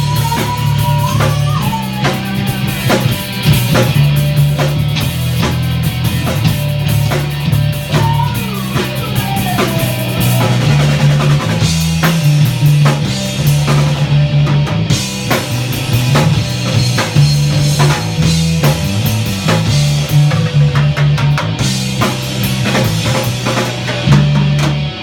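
Rock music with a full drum kit, a prominent moving bass line and electric guitar, including a few bent lead-guitar notes in the first ten seconds.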